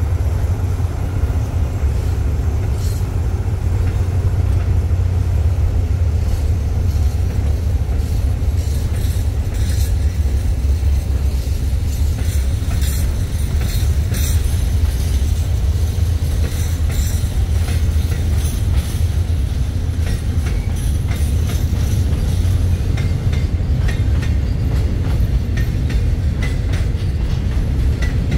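Container freight train's flatcars rolling past steadily: a heavy low rumble with scattered clicks of the wheels over the rail joints.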